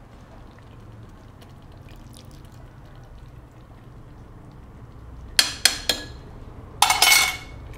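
Metal utensil against a cooking pot: three sharp clinks about five and a half seconds in, then a short ringing metallic scrape near the end, over faint kitchen background.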